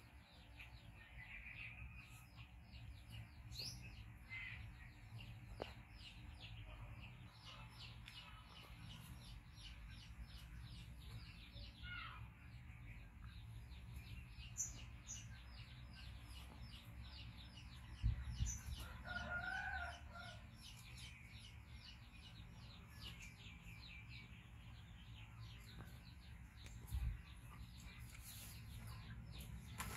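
Faint background of birds chirping many times a second over a steady low rumble. About two-thirds of the way in there is a soft knock, then a short call.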